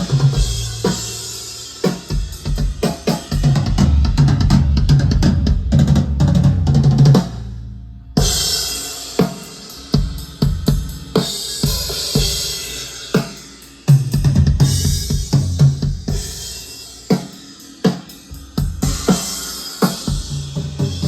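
Custom drum kit played in a groove of bass drum, snare, toms and cymbals. The playing stops sharply for under a second about eight seconds in, then comes back in with cymbal crashes.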